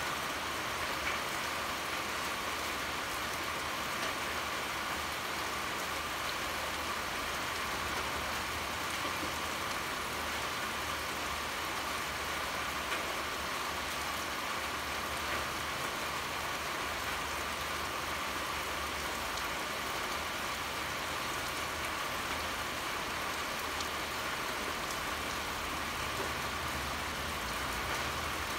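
Steady heavy rain pouring and pattering on surfaces, with a few individual drops ticking, over a faint low rumble.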